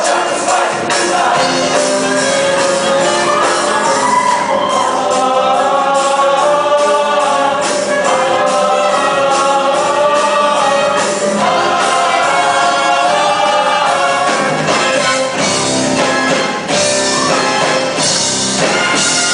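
High school show choir singing together over instrumental backing, many voices moving in harmony.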